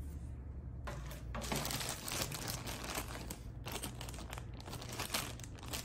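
A thin plastic Happy Meal toy bag crinkling as hands pick it up and handle it, starting about a second in, over a steady low hum.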